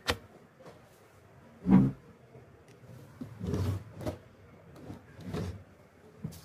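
Handling noises from an old plastic computer case fan on a paper-covered table. There is a sharp click as it is picked up, then a dull thud a little under two seconds in, where it is set down. After that come a few softer knocks and rubbing sounds.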